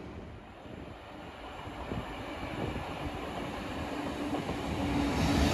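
DSB push-pull train, a Siemens Vectron class EB electric locomotive with ABs coaches, approaching on the track, its rumble growing steadily louder, with a steady hum-like tone coming in near the end.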